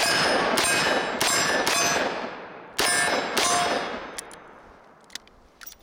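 Smith & Wesson 586 .357 Magnum revolver fired six times at steel targets: four quick shots, a pause of about a second, then two more. Each shot is followed by the ringing clang of a hit steel plate.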